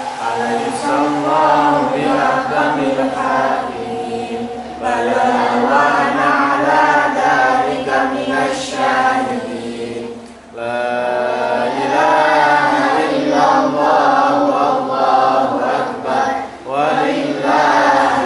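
A boy's voice reciting the Qur'an in Arabic, chanted melodically in long held, ornamented phrases. Short breath pauses break the phrases about four and a half and ten and a half seconds in.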